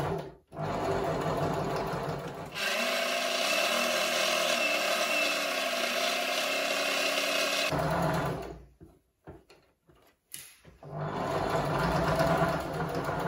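Janome electric sewing machine stitching a seam, running steadily. It stops for a couple of seconds past the middle, when the fabric is repositioned, then starts stitching again.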